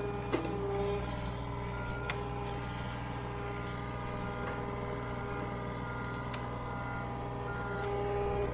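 John Deere 35G mini excavator's diesel engine running steadily while the hydraulics work the boom and bucket, with whining tones coming and going. A sharp metallic clank sounds shortly after the start, and a lighter one about two seconds in.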